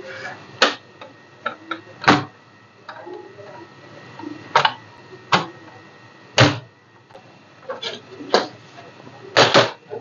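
Plastic retaining clips of a Dell Vostro 15 3568 laptop's palmrest and bottom base cover snapping loose as the two halves are pried apart by hand. About nine sharp clicks come at irregular intervals, two of them close together near the end.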